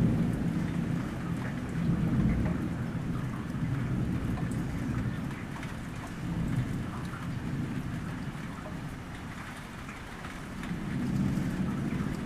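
Steady rain pattering on wet grass and puddles, with low thunder rumbling underneath in slow swells, loudest at the start and again near the end.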